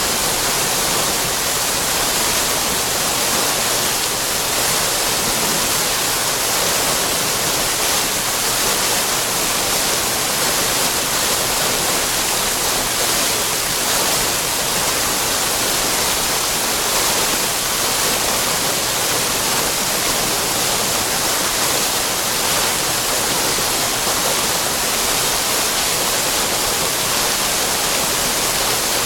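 Water fountain splashing: a steady, even rush and hiss of falling water, strongest in the high range, with no changes.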